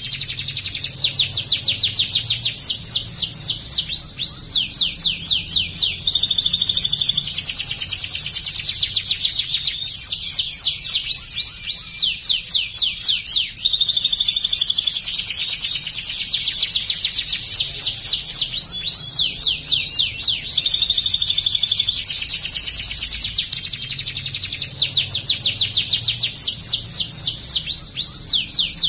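White domestic canary singing continuously: phrase after phrase of fast repeated notes and rattling trills with only brief breaks. It sings ciblek (bar-winged prinia) material it has been trained to copy, delivered as rapid bursts.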